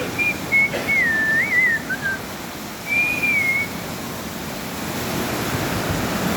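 Heavy rain falling as a steady hiss, with someone whistling short wandering phrases over it, for the first two seconds and again briefly about three seconds in.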